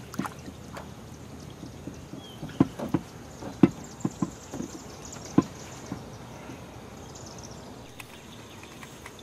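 Scattered knocks and taps of gear and movement against a small boat's hull, with a cluster of sharper knocks between about two and a half and five and a half seconds in.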